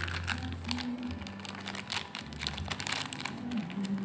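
Clear plastic bag holding a multimeter's test leads crinkling as it is handled: a dense run of irregular crackles.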